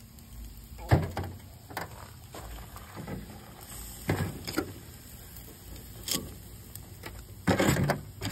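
Metal tongs setting grilled oysters in their shells down into a disposable aluminium foil pan: a series of sharp knocks and clatters of shell and tongs on thin foil, the loudest and longest near the end.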